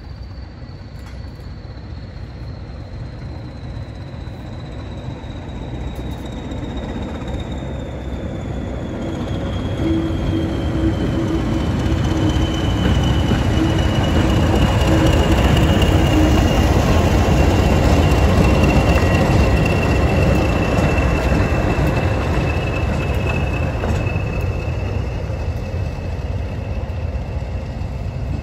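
A pair of Class 20 diesel locomotives, each with an English Electric eight-cylinder engine, running past together. Their engine rumble builds to a peak about halfway through and then fades. Over it sits the high whistle of the turbochargers, slowly falling in pitch.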